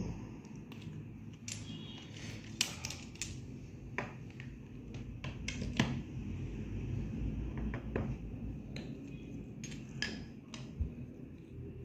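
Irregular small clicks and taps as the glass bulbs and twisted plastic-sheathed wire of a decorative light string are handled, over a steady low hum.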